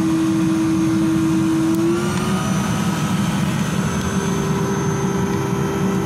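Variable-speed electric blower running steadily, forcing air through a pipe into a wood-fired furnace made from an LPG bottle; its hum steps up slightly in pitch about two seconds in.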